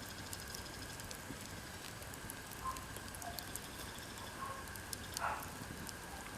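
Wood campfire crackling, with scattered small pops and snaps from the burning split firewood. A louder pop comes about five seconds in.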